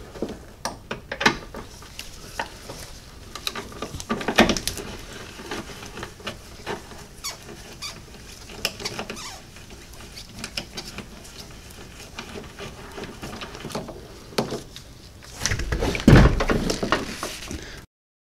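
Ratchet on a long extension loosening a 13 mm battery hold-down bolt: irregular ratchet clicks, squeaks and metal-on-metal knocks. A louder bout of clatter comes near the end, then the sound cuts off abruptly.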